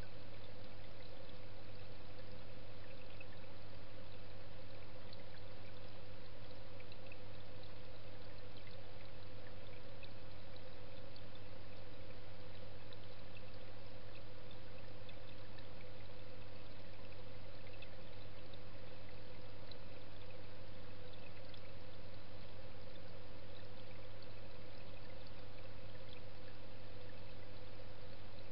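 Steady rush of flowing water with a constant low hum, heard underwater in a fish pond, as from the pond's pump and water circulation.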